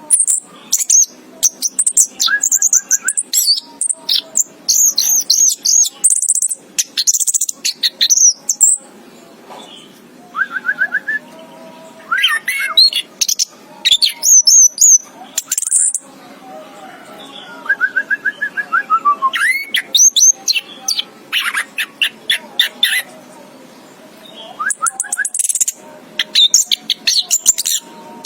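Orange-headed thrush singing: loud phrases of quick, varied high whistles, chirps and short sliding notes, coming in bursts with brief pauses between them.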